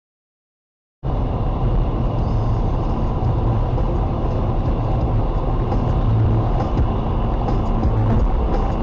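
Steady in-cabin road noise of a car driving fast on a wet motorway in heavy rain: a loud low rumble with tyre and rain hiss, starting suddenly about a second in.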